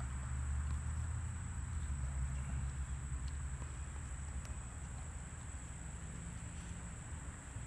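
Common eastern bumblebee buzzing low in the grass, a low hum that is stronger in the first few seconds and then fades. A steady high-pitched insect trill runs behind it.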